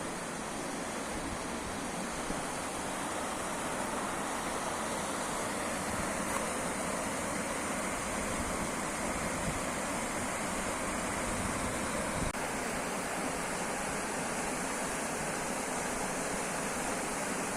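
Steady rushing of running water, an even, unbroken noise.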